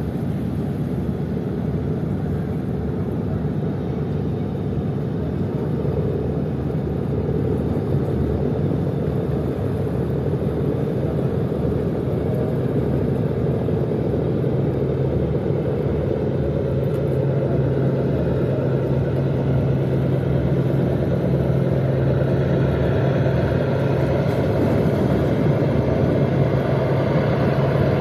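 Engines of the Barcelona III-A passenger ship running with a steady low rumble as it passes close by. A steady low hum comes up about halfway through and the sound grows slightly louder.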